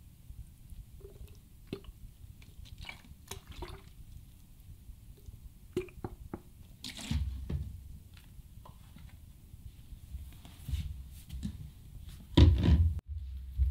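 Water trickling and dripping from a plastic bottle onto a small potted succulent, with scattered small clicks. A louder knock near the end as the bottle is set down on the floor.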